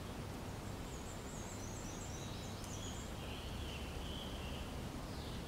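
Steady outdoor background noise with a faint run of quick, high-pitched chirps about one to three and a half seconds in.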